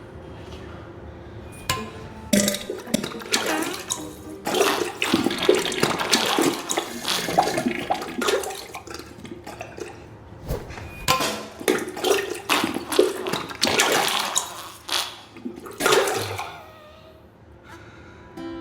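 Diarrhea sound effect: a string of irregular, noisy, watery spurts and splatters into a toilet bowl, with a short lull midway.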